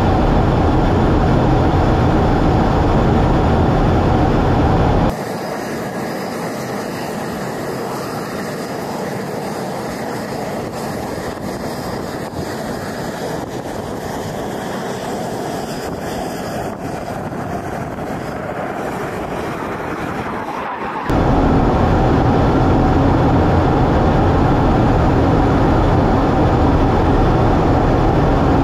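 Steady jet engine and airflow noise inside the cockpit of a Navy F/A-18 in flight. About five seconds in it cuts suddenly to a quieter, thinner jet noise with far less bass, matching a shot of two F/A-18s flying overhead. The loud cockpit noise cuts back in suddenly about twenty-one seconds in.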